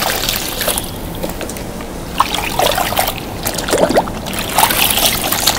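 Chopped ginger and freshly added onion sizzling in hot cooking oil in a wok, a steady crackling hiss.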